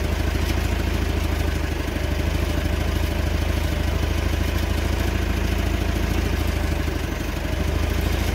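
Engine of a JCB machine idling steadily, with an even beat.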